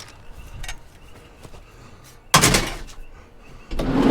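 A vehicle door slamming shut about two seconds in, followed by a second loud thump or clatter near the end that stops abruptly.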